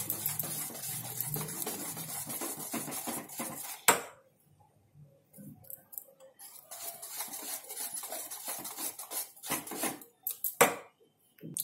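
Wire whisk beating thick gram-flour batter in a stainless steel bowl, the wires scraping and clinking rapidly against the metal. There is a sharp knock about four seconds in, a brief pause, then more whisking and another sharp knock near the end.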